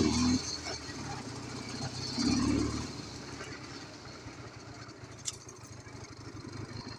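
Ural motorcycle's flat-twin engine running. It swells louder at the start and again about two seconds in, then settles to a lower steady note. A short sharp click comes about five seconds in.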